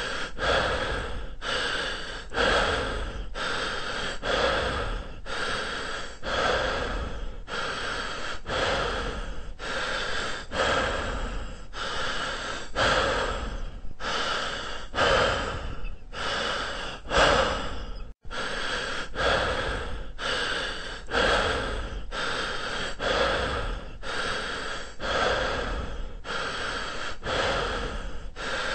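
A person breathing hard and rhythmically, one heavy breath roughly every second, as from running exertion. It cuts out for an instant about two-thirds of the way through, then carries on.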